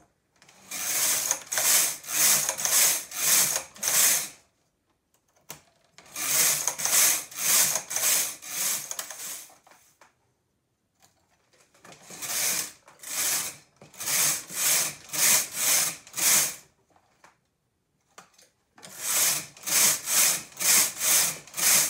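Silver Reed knitting machine carriage pushed rapidly back and forth across the metal needle bed, a rasping slide with about two strokes a second, each stroke knitting one row of a narrow strip. It comes in four runs of five or six strokes with short pauses between.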